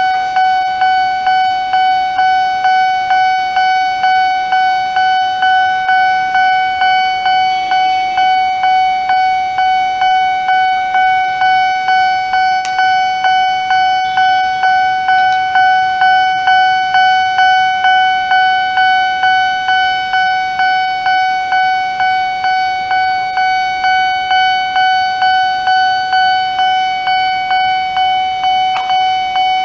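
Nippon Signal electronic railway-crossing alarm ringing in an even, repeating ding at just under two strokes a second, warning that a train is approaching with the barriers down.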